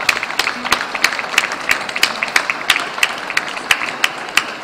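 Applause: many hands clapping in quick, uneven succession, with a few louder claps standing out.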